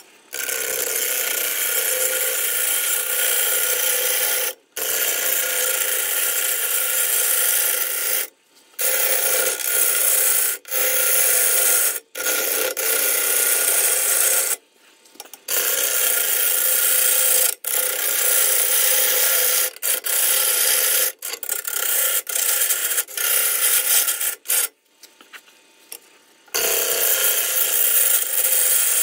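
A turning tool cutting into a spinning eucalyptus burl blank on a wood lathe: a loud, rough scraping hiss of wood being cut away. It comes in stretches of a few seconds, with short breaks to near silence whenever the tool comes off the wood.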